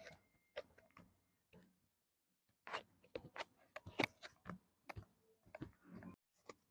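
A series of faint, irregular clicks and taps, mostly in the second half, during hands-on treatment.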